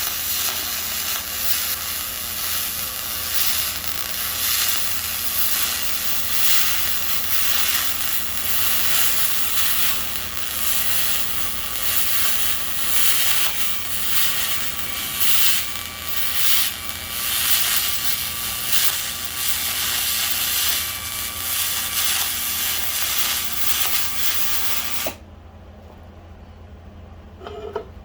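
A small motor-driven machine runs with a loud, rough hiss and a faint steady whine, then cuts off suddenly about 25 seconds in. A low hum runs underneath throughout.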